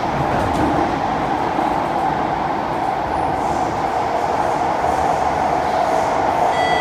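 Cabin noise of a Kawasaki-CSR Sifang C151B metro train running through a tunnel: a loud, steady rumble of wheels on rail. Near the end, a few thin, steady high tones come in over the rumble.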